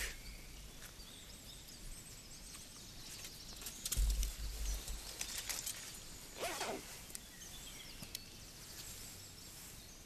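Quiet outdoor woodland ambience with a few faint bird chirps. There is a brief low rumble about four seconds in.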